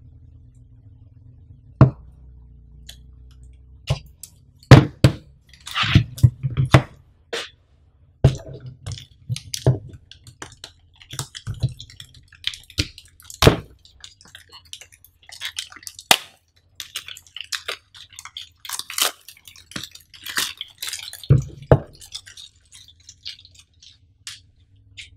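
Clear plastic wrapping being torn and peeled off a small cardboard box by hand: crinkling and rustling with sharp clicks and taps. The sounds are sparse at first, busiest through the middle, and thin out near the end.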